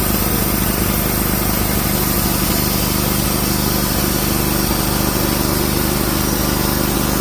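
Wood-Mizer portable band sawmill running, its engine holding one loud, steady pitch with a dense hiss on top.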